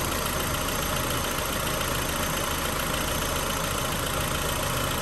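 Renault Megane petrol engine idling steadily, run after fresh spark plugs have been fitted.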